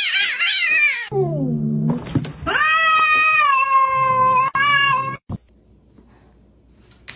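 Domestic cats yowling. First comes about a second of high, rapidly wavering yowls. Then a lower call that slides down in pitch, then a long, steady yowl of over two seconds that cuts off suddenly.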